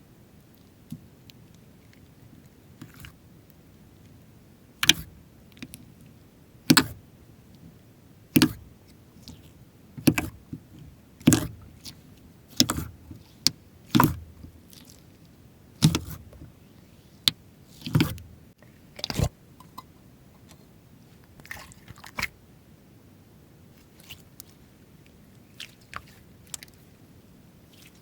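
Slime being squeezed and stretched by hand, giving sharp wet pops and clicks about every one to two seconds. They are loudest through the middle and fainter near the end.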